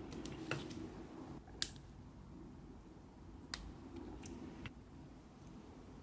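Small wire cutters snipping a thin metal nail chain: a handful of separate, sharp little clicks. The two strongest come about one and a half and three and a half seconds in.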